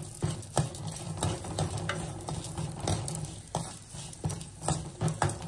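A spatula stirring and scraping whole spices (coriander seeds, dals, pepper, fenugreek) as they sauté in a little sesame oil in a pan. The spatula knocks against the pan about twice a second over a light sizzle.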